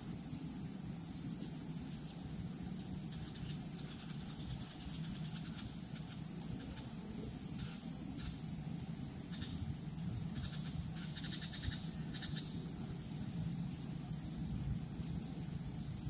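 Open-field ambience: a steady high-pitched drone over a low rumble, with a scatter of short rasping clicks or calls in the middle, including a quick rattling run a little before the end.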